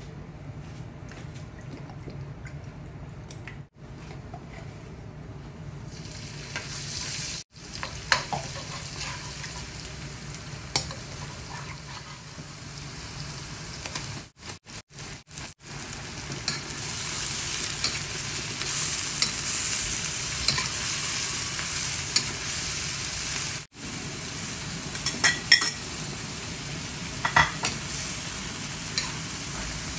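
Vegetables sizzling in hot oil in a wok as they are stir-fried, with scattered sharp clicks and scrapes of the utensil against the pan. The sizzle is faint for the first few seconds and grows louder in the second half.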